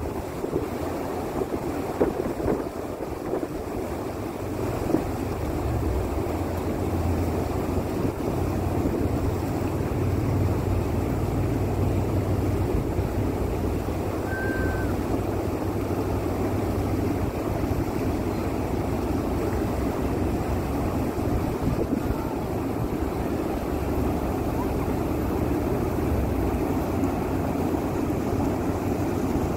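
Steady wind buffeting the microphone by open water, with a low rumble underneath and one short high chirp about halfway through.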